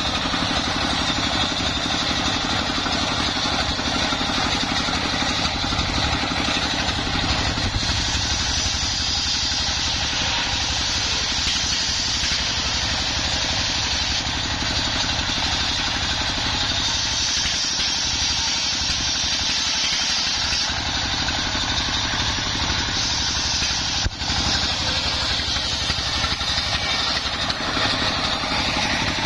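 Stationary single-cylinder diesel engine running steadily, driving a homemade table circular saw ripping a mahogany log, with the blade's cutting hiss swelling and easing as the timber is pushed through.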